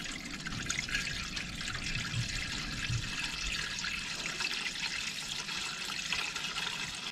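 Coolant poured in a steady stream from a plastic jug into a car's cooling system filler, a continuous splashing trickle of liquid as the system is filled.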